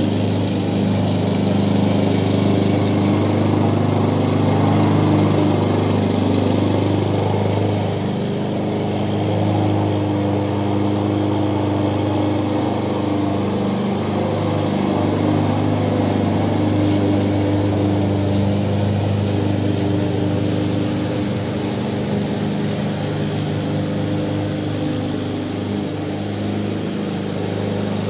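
Honda walk-behind rotary lawn mower's small four-stroke engine running steadily while cutting grass, with the blade's whir over the engine note, which shifts slightly as the mower moves about and eases off somewhat in the second half.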